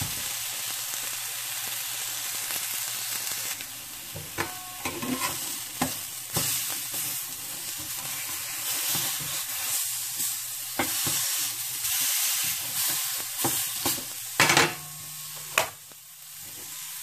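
Thin, pounded pork tenderloin slices sizzling as they fry in a little olive oil in a skillet. A spatula scrapes and taps against the pan several times as the slices are turned.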